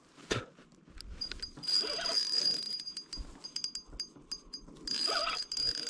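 A spinning reel buzzing and clicking in stretches under the strain of a big sturgeon on the line, with one sharp knock near the start.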